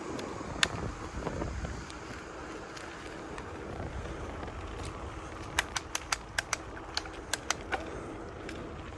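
Riding a bicycle along an asphalt trail: a steady rush of wind on the microphone with road rumble underneath. There is a sharp click about half a second in, and an irregular run of about ten sharp clicks between about five and a half and eight seconds in.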